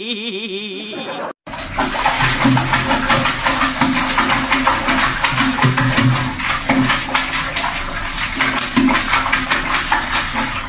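A short wavering whine that breaks off about a second and a half in, then water splashing and sloshing in a toilet bowl as a dog drinks from it, a dense run of rapid splashes.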